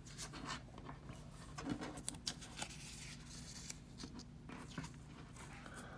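Faint, irregular scratching and light taps of a nib ink pen on an acetate animation cel, with soft rustles as the cel is turned by hand.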